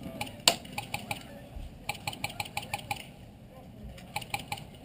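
Airsoft guns firing, three strings of sharp clicks at about seven a second, with one louder crack about half a second in.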